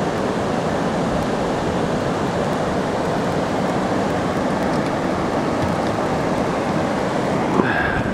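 A steady, even rushing noise with no clear pitch, the kind made by moving water or wind. A short higher sound cuts in near the end.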